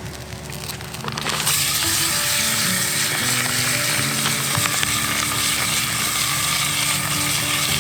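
Sirloin beef tips browning in hot lard in a cast-iron Dutch oven: loud sizzling and frying starts suddenly about a second and a half in and then holds steady, over background music.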